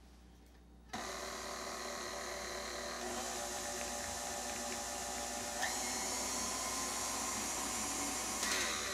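Electric tilt-head stand mixer starting up about a second in and running with a steady motor whine while it beats cream cheese and butter frosting as powdered sweetener is added. Its pitch steps up twice, then it winds down near the end.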